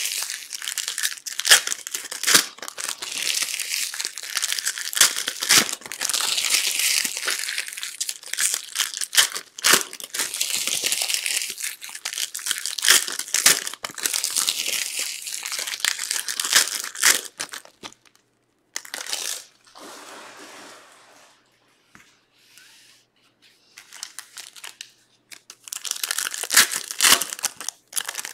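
Trading-card pack wrappers crinkling and tearing as Topps Stadium Club Chrome packs are ripped open, with cards clicking and slapping as they are handled. The crackling goes much quieter for several seconds about two-thirds of the way through, then picks up again near the end.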